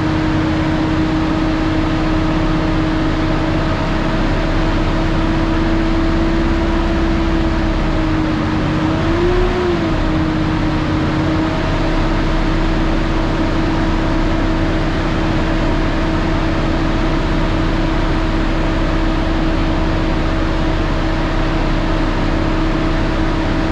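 Freshly rebuilt diesel engine idling steadily while it warms up, heard from inside the cab, with a steady hum throughout. About nine seconds in its pitch rises slightly and falls back.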